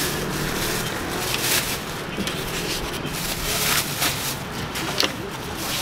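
Thin black plastic carrier bag rustling and crinkling as foam takeaway boxes are packed into it, with short scattered crackles throughout.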